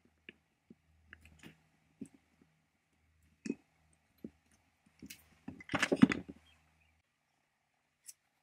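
Small metal engine parts clicking and tapping as they are handled and fitted by hand, with a louder clatter of metal on metal about six seconds in.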